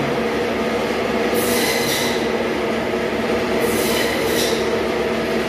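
Electric meat-processing machine running in a butcher's room: a steady drone, with a harsher grinding surge twice, as meat is worked through it.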